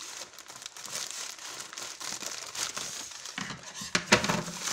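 Plastic postal mailer bag wrapped in packing tape crinkling and rustling as it is cut open with scissors and handled, with a louder burst of crinkling about four seconds in.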